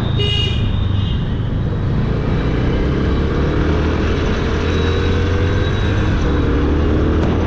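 Yamaha motorcycle engine running at a steady cruise while riding in traffic, its pitch drifting gently, under a constant low rumble of wind and road noise. A short high-pitched tone sounds briefly near the start.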